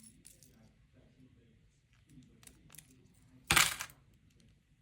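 Handling noise from unboxing a phone: scattered light clicks and taps, and one louder, brief clattering noise about three and a half seconds in.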